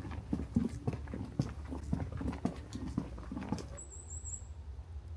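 Footsteps: soft, irregular knocks about twice a second with light rustling. They get quieter about three and a half seconds in.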